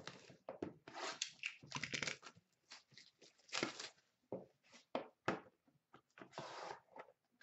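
Plastic wrapping being torn and crinkled off a sealed trading card box, in a run of short, irregular crackling rustles, with the cardboard box handled as it is opened.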